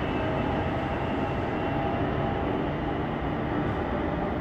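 NS Sprinter New Generation electric train pulling away from an underground platform into the tunnel: a steady running noise of wheels and traction, echoing in the underground station.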